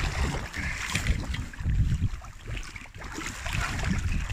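Wind buffeting the microphone in uneven gusts, with water slapping and splashing against the side of a small inflatable boat as a hooked tope is gripped at the surface.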